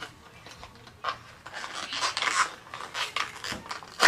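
Irregular rustling and scraping of plastic packaging being handled and opened, ending in a sharp click.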